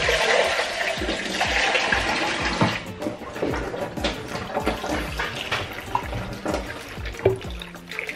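Water being poured into a slow cooker full of chopped vegetables and gravy, a rushing splash strongest over the first three seconds, then lighter.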